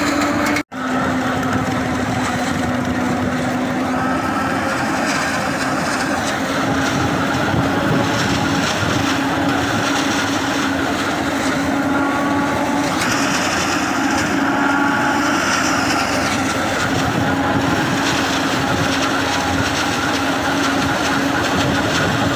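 Massey Ferguson 385 tractor's four-cylinder diesel engine running steadily under load, driving a front-mounted silage harvester that cuts and chops standing maize. A steady hum sits under a dense mechanical noise, and the sound cuts out for a split second under a second in.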